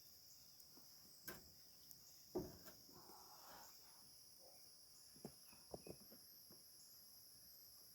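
Near silence with a faint, steady, high-pitched insect chorus, such as crickets, and a few faint soft knocks scattered through it.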